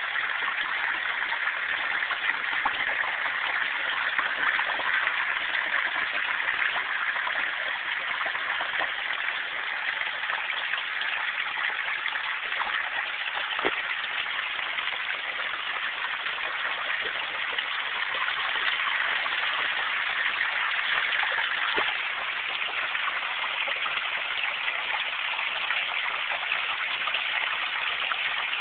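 Floodwater rushing steadily as a cellar begins to flood.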